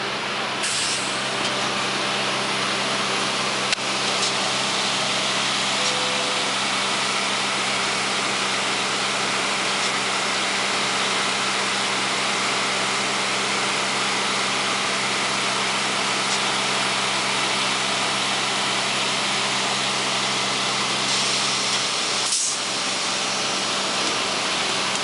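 Modified R44 subway cars standing at the platform: a steady hiss of air with a low, even hum from the cars' equipment underneath.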